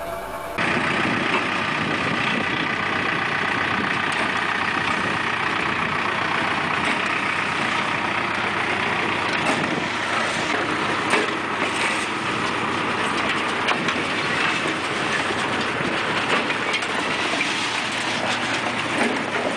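Tractor-drawn sod harvester at work: the tractor's engine together with a dense mechanical clatter from the harvester's cutting and conveyor gear, with scattered knocks. It starts abruptly about half a second in.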